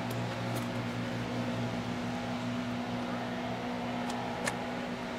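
Steady mechanical hum, even in pitch, with a few faint clicks.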